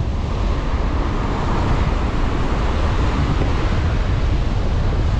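Ocean surf breaking and washing up a sandy beach, a wave's hiss swelling then easing off about three seconds in. Wind buffets the microphone with a low rumble throughout.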